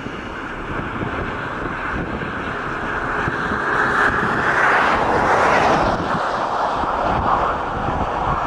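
Wind blowing across the microphone, a steady rush that swells into a stronger gust about four to six seconds in.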